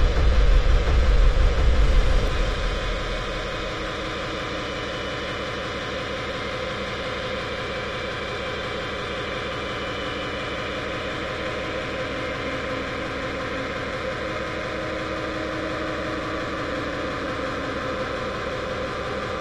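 Harsh, distorted hardcore electronic music. A heavy bass kick drops out about two to three seconds in. What remains is a dense, noisy wash driven by very fast repeating pulses.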